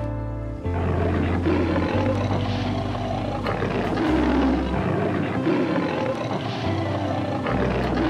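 A lion calling in a series of low roars about a second apart, over background music with steady bass notes.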